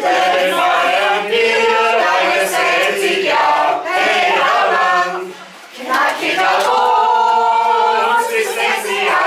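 A group of men and women singing together in chorus, with a short break about five and a half seconds in.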